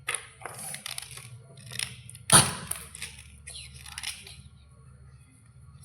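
Crunching and cracking of white slate bars: a run of short crackles with one loud, sharp crack about two seconds in, over a low steady hum.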